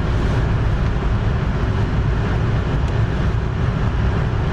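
Car's defroster blower running to clear the fogged windshield: a steady rushing noise with a heavy low rumble, heard from inside the cabin.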